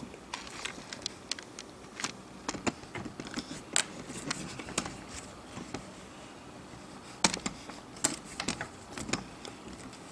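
Scattered light clicks and taps of small metal tools and parts being handled on an iPhone 6 Plus under disassembly, with a denser, louder run of clicks about three quarters of the way through.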